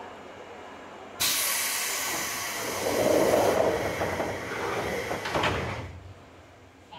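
JR West Series 201 train's pneumatic sliding doors closing: a sudden hiss of air about a second in, then the door panels rumbling shut and closing with a thud at about five and a half seconds.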